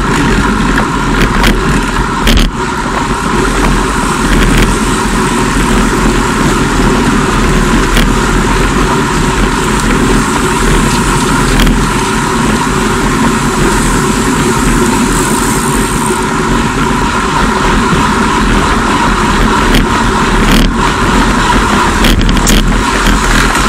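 Steady rush of wind and road noise on a bike-mounted camera's microphone while riding at about 40 km/h, with a few brief knocks.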